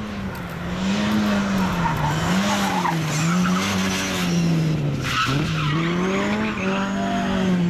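Ford Escort MK2 rally car at speed, its engine note rising and falling repeatedly as the throttle is worked, with tyres squealing. The sound breaks off briefly about five seconds in and picks up again.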